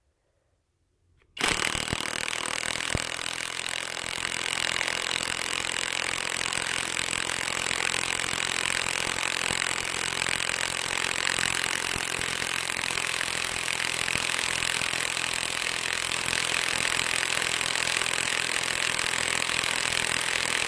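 Cordless 1/2-inch impact wrench, a Makita-battery clone, hammering steadily as it drives a 3/8-inch by 12-inch lag bolt into a fallen tree trunk. It starts about a second and a half in and keeps going without a pause.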